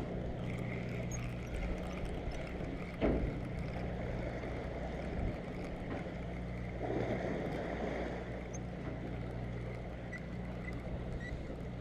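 Steady low hum of the head boat's engine over wind and sea wash, while a spinning reel is cranked to bring in a fish. A single short knock about three seconds in.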